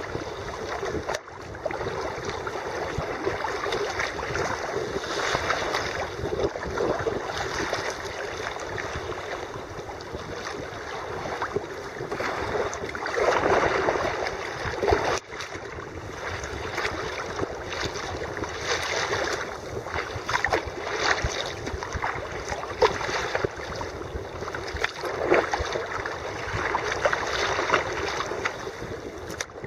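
Sea water splashing and lapping against a sea kayak's hull close to the microphone as it is paddled through choppy water, with wind. A louder splash comes about halfway through.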